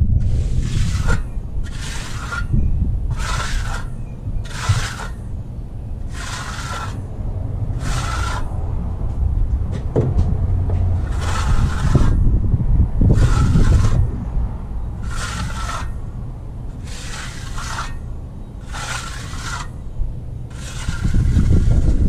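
A notched trowel, used on its smooth side, scraping over wet concrete in repeated strokes about one a second, with a pause about halfway through, while the surface is smoothed for finishing. Low wind rumble on the microphone underneath.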